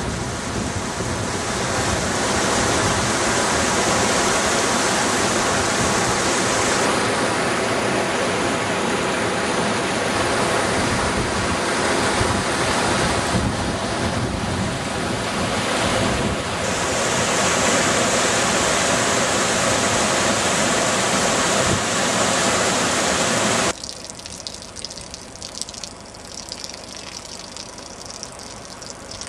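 Loud steady rush of flowing floodwater. About 24 seconds in it drops abruptly to a quieter, more uneven water sound.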